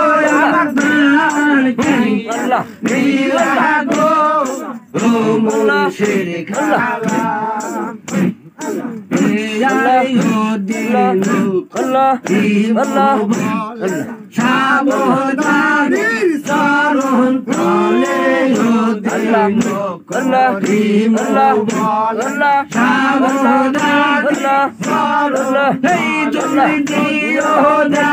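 Men singing a Bengali devotional zikir song, a lead voice on a microphone with a group of voices joining in, over hand clapping.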